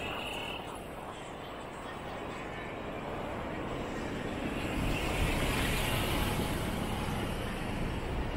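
City street traffic with a road vehicle passing close, its rumble and tyre hiss swelling about halfway through, loudest around five to six seconds in, then easing slightly.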